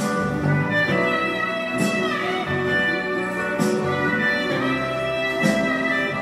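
Instrumental interlude of a karaoke backing track, with sustained strings and a hit about every two seconds. No one is singing.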